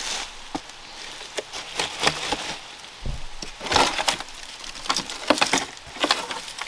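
Dry twigs and brush crackling and snapping in irregular clusters, with a dull thud about halfway through.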